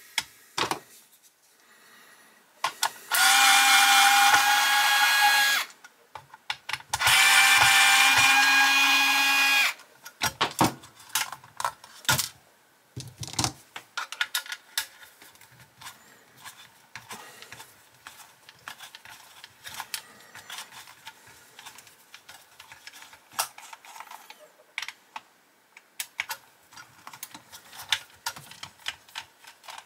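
A small cordless drill-driver runs twice, each time for about two and a half seconds with a steady whine, backing screws out of a diecast model car. For the rest of the time there are many light clicks and rattles as small plastic and metal parts are handled and pried apart.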